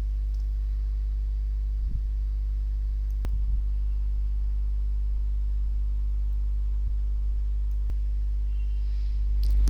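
Steady low electrical hum with a buzzy edge, mains hum picked up by the recording, with a few faint clicks.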